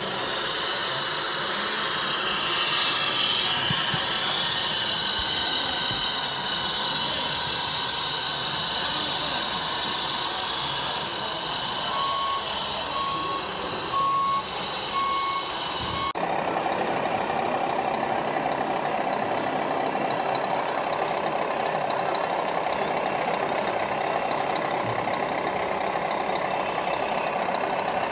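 Radio-controlled scale model trucks running, a steady mechanical hum and whir. Partway through, a reversing beeper sounds about four times at an even pace. After a cut, a higher-pitched beep repeats about once a second.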